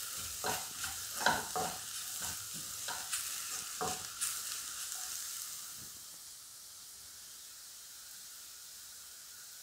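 Wooden spatula stirring and scraping an onion and spice masala frying in a nonstick wok, a run of quick strokes in the first half; after that the mixture sizzles steadily on its own.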